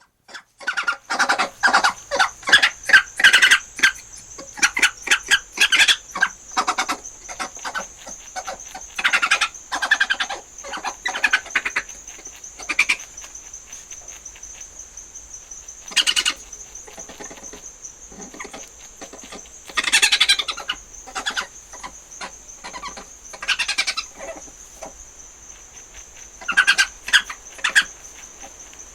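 Badger squealing in repeated bouts of rapid, short, high-pitched calls, separated by pauses of a few seconds. A steady high insect-like trill runs underneath.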